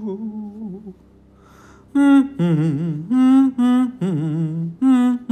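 A man humming a wavering note, breaking off for about a second, then singing a quick run of wordless "do do do" notes that hop between a few pitches.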